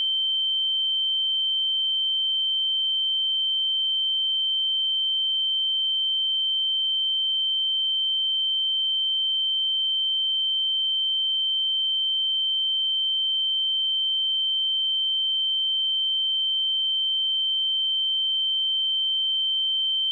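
A steady, unbroken 3111 Hz sine-wave test tone: a single high-pitched pure tone held at a constant level.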